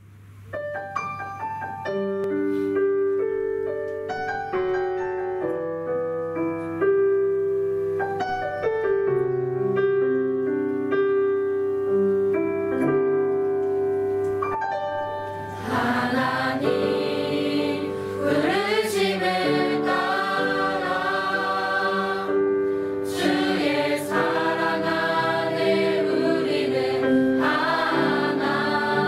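Digital piano playing a slow gospel-style introduction; about halfway through, a mixed choir of men and women comes in singing a Korean worship song over the piano accompaniment.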